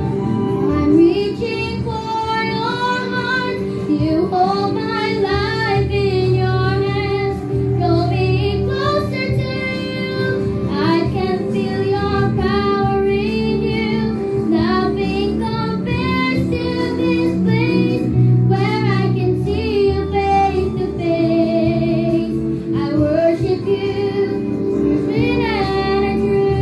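A young girl singing a slow worship song into a microphone over instrumental accompaniment, her voice coming in about a second in.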